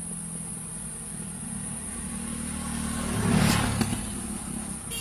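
A motor vehicle's engine hums low and swells as it passes close about three and a half seconds in, then fades. A steady high-pitched buzz of insects runs underneath.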